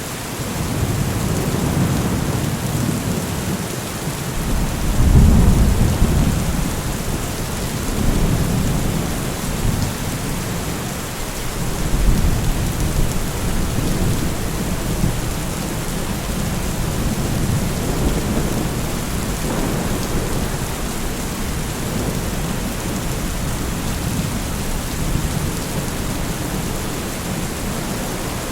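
Thunderstorm: steady heavy rain with low rolling thunder swelling and fading, the loudest rumbles about five seconds in and again about twelve seconds in.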